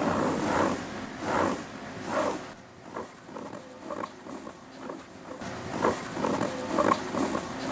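A homemade scratching sound effect made from several recordings layered in unison to imitate claws scratching a carpet. It comes as a run of repeated scratching strokes, most of them rising, each under a second apart.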